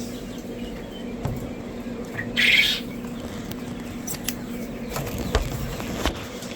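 Hatcher or incubator running with a steady hum, with faint peeping from newly hatched chicks inside. A few knocks and a brief rustle about two and a half seconds in come from handling at the hatcher.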